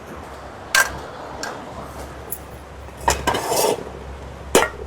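Metal cooking pot being handled: a sharp clank about a second in, a short rattle of clinks a little after three seconds, and another clank near the end.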